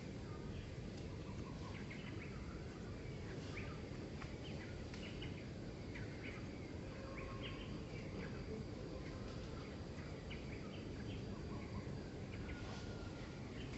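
Outdoor ambience: a steady low background noise with many short high chirps scattered throughout, over a faint steady high insect whine.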